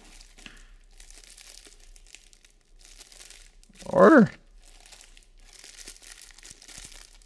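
Clear plastic bags holding action-camera mounts crinkling and rustling as they are handled and lifted out of a cardboard box. About four seconds in, a short voiced sound falls in pitch, the loudest thing heard.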